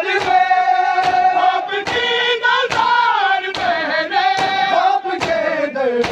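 Matam: a crowd of mourners beating their chests in unison, one sharp slap about every 0.8 s. Men's voices chant a noha in time over the slaps.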